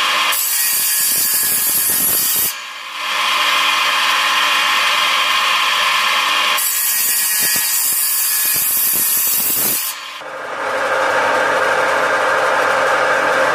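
Homemade table saw, its circular blade driven by an old German electric motor, ripping a wooden board: the cutting noise goes on, briefly drops off at about 2.5 s and again at about 10 s, and near the end the saw runs on with a steadier hum.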